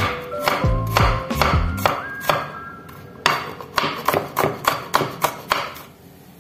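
Kitchen knife chopping garlic on a wooden cutting board: a steady run of sharp strokes, about three a second, that stops shortly before the end.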